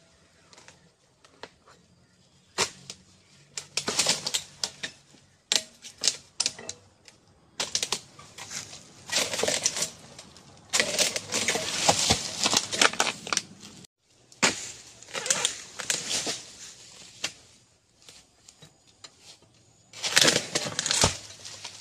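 Dry oil palm fronds and vegetation rustling and crackling in repeated bursts, with sharp clicks and snaps between them.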